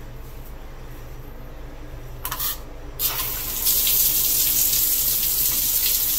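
Single-lever shower valve turned on: the handle moves with a few short sounds about two seconds in, then the shower starts spraying onto the tile and settles into a steady loud hiss of water.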